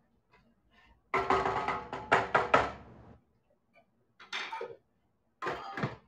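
Cookware and utensils knocking and clattering in a kitchen. About a second in comes a two-second run of quick knocks with some ringing, and two shorter clatters follow near the end.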